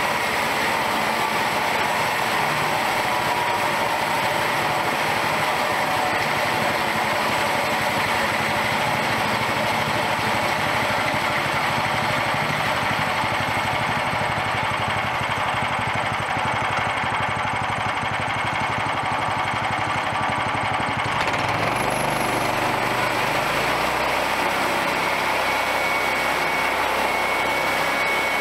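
Engine of a homemade bandsaw mill running steadily during milling. Its sound shifts about three-quarters of the way through.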